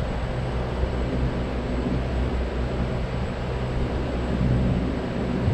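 A steady, low engine-like drone with street noise, holding an even level throughout.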